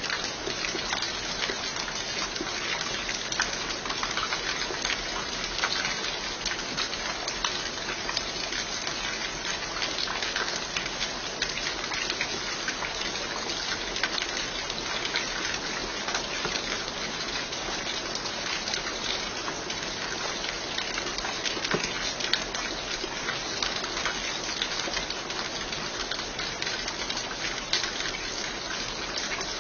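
Steady rain: a dense, even hiss dotted throughout with the small ticks of single drops striking.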